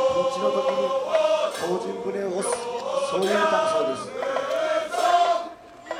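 A group of voices singing a chant-like song together in drawn-out phrases, with a short break near the end.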